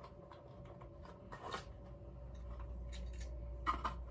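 Light clicks and taps of a tin wind-up toy soldier and its packaging being handled, with one louder click about a second and a half in and two more close together near the end.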